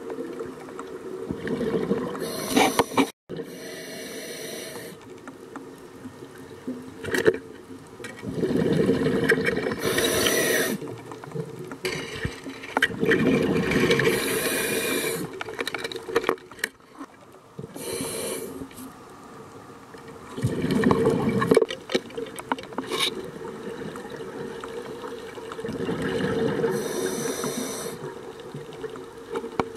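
Scuba regulator breathing underwater: a hiss on each inhale and a burst of bubbling exhaled air, about five breaths roughly six seconds apart, over a steady low hum.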